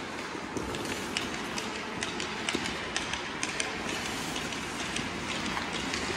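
Ice hockey goalie's skate blades scraping the ice and leg pads sliding on it as he turns and drops into a butterfly slide, with many scattered sharp clicks and taps of skates and sticks on the ice.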